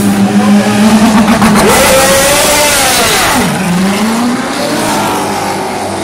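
Race car engine revving as it pulls away in the pit lane. The pitch climbs, drops sharply about three and a half seconds in, then climbs again as the sound fades into the distance.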